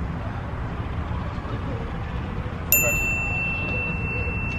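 A single bright ding, a bell-like chime sound effect that strikes suddenly about two and a half seconds in and rings on as it fades, over a steady low outdoor rumble.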